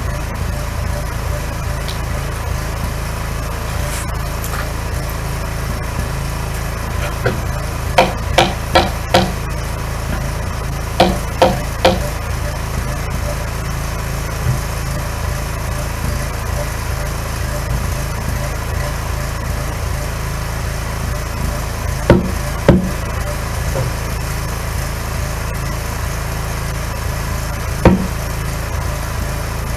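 Generator running steadily, with groups of sharp knocks on the cedar log wall: four in quick succession, then three, then two, and a single knock near the end.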